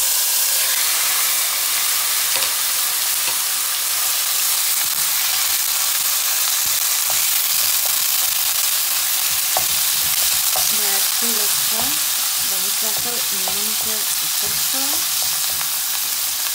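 Raw minced meat frying in hot oil in a nonstick pan: a loud, steady sizzle as the meat cooks, with light scrapes and taps of a wooden spatula stirring and breaking it up.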